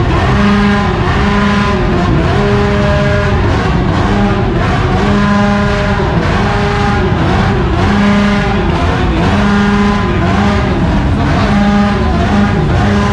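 A motorcycle engine revved over and over, about every two seconds, each rev rising, held steady at high revs for about a second, then falling away.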